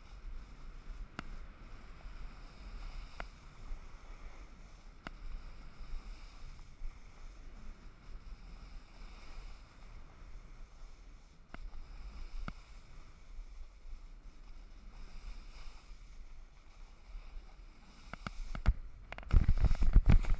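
Snowboard sliding over snow, a steady hiss with a low rumble on the helmet-mounted camera and scattered small clicks. Near the end comes a loud burst of scraping and knocks as the rider goes down onto the snow.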